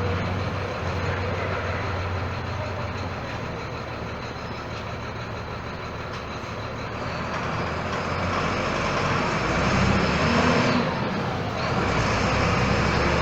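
Volksbus 17-230 EOD bus engine running under way; it grows louder about two-thirds in with a rising whine, drops off briefly near the end, then climbs again.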